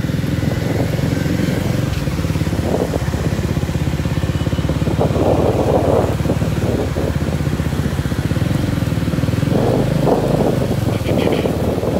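Small motorcycle engines running steadily while riding in a group, heard from on board one of the bikes, with a few louder noisy swells partway through.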